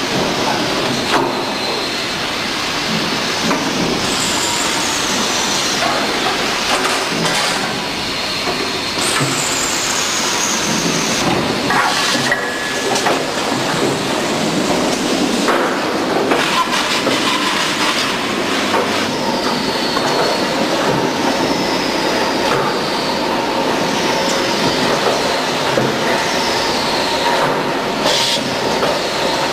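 Steady mechanical din with repeated short, high squeals that fall in pitch, and a faint steady hum joining about halfway through.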